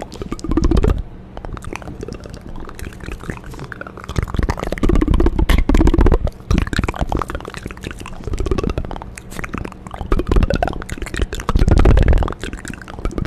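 Wet ASMR mouth sounds made close to the microphone: quick clicks and smacks with louder, swelling wet sounds a few times.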